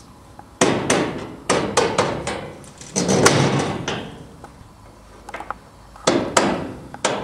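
A hand tool knocking and prying at the loose sheet-metal skin panel of a 1926 Edwards railbus whose rivets have been ground off. There are several clusters of sharp metallic knocks, and a longer clattering of the panel about three seconds in.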